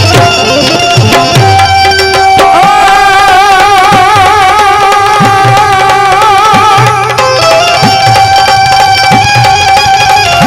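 Instrumental Indian devotional folk music: tabla playing a steady rhythm, its bass strokes sliding up in pitch, under a held melody line that wavers in pitch and steps down a little past the middle.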